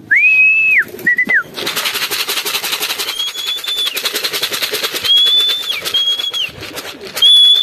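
A person whistling to call racing pigeons in to the loft. There is one long whistle and a short one, then several shorter held whistles at a higher pitch over a fast, steady rattle that starts about a second and a half in.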